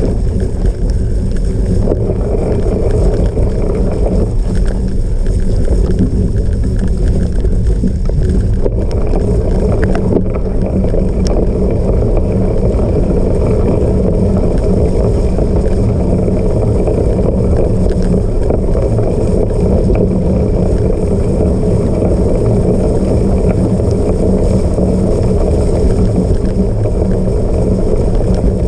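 Steady, loud rumble of wind on the microphone and a cyclocross bike rolling over rough off-road ground during a race.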